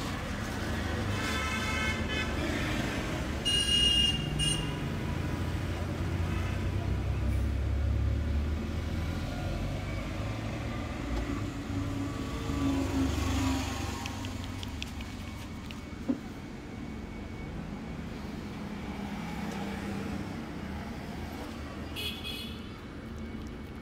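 Street traffic running steadily, with vehicle horns honking several times, twice close together in the first few seconds and once more near the end. A single sharp click comes about two-thirds of the way through.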